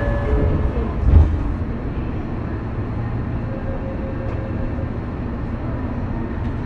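Running sound of a Tokyo Metro 03 series chopper-controlled motor car (MoHa 03-212) heard inside the car: a steady low rumble of wheels on rail with faint thin tones over it, and a brief thump about a second in.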